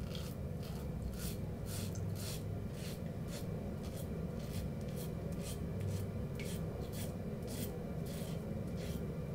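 Double-edge safety razor with a fresh Derby blade scraping stubble through shaving lather, in short strokes two or three a second, over a steady low hum.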